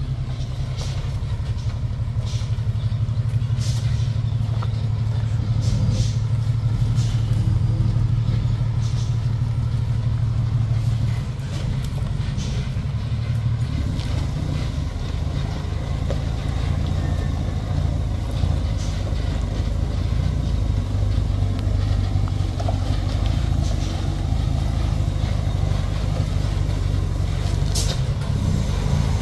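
Dump truck's engine running at a low, steady note as the truck reverses slowly, easing off slightly about a third of the way through.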